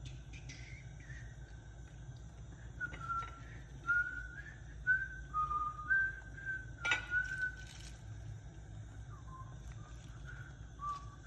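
A person whistling a slow tune in short held notes, with a low steady hum underneath and one sharp click about seven seconds in.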